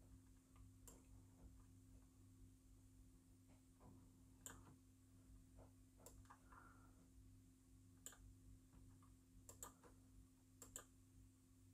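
Faint clicks of a wired computer mouse: a few single clicks and two quick double clicks about two thirds of the way in and near the end, over a low steady hum.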